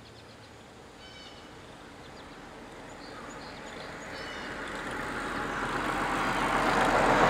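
A road vehicle approaching, its rushing road noise growing steadily louder, with a few faint bird chirps in the first few seconds.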